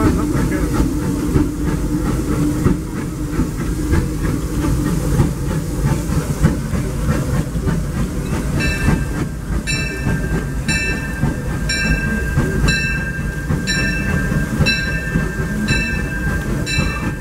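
Steam train running, with a steady rumble, wheel clatter and hiss. About halfway through a bell starts ringing steadily, about one stroke a second.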